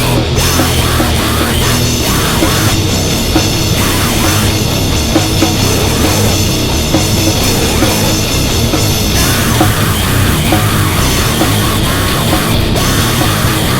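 Loud, harsh heavy music, dense and unbroken, from a recorded track in an extreme, metal-like style.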